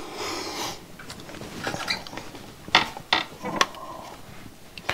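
Handling noise from a PCB holder and a magnifier lamp on a workbench: a short rustle at the start, then three sharp clicks and creaks about three seconds in as the board is turned over in its clamp and the lamp's arm is swung in.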